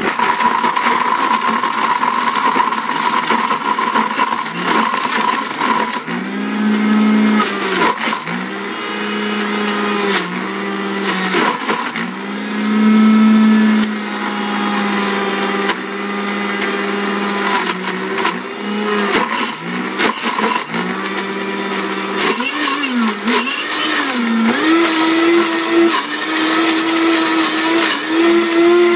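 Vitamix blender with a Wildside jar running at speed, blending frozen fruit and orange juice into a thick sorbet-like purée. A steady high whine at first; from about six seconds in the motor's pitch wavers, dipping and rising several times as the frozen chunks load the blades.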